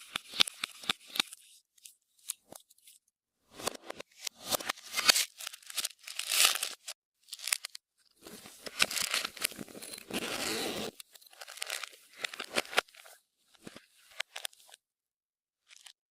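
Clear slime being squeezed and stretched by hand, giving irregular bursts of sticky clicks and pops with short pauses between.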